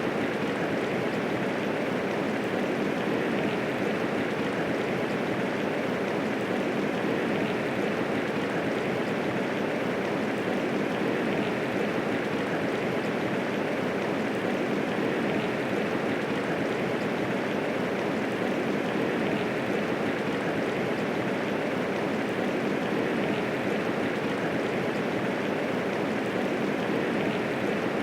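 Steady medium rainfall, an even hiss of many drops with no thunder.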